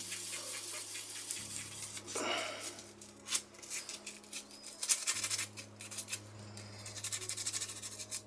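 Rolled wet-and-dry abrasive paper twisted and rubbed inside the pivot hole of a FELCO 7 secateur part: a faint, rapid scratchy rasping that scours rust and grit from the pivot. A steady low hum runs underneath.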